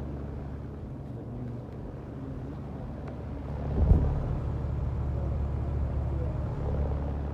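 Outdoor heat pump condenser units running, a steady low electrical-mechanical hum from the compressor and fan. A brief louder low rumble comes just under four seconds in.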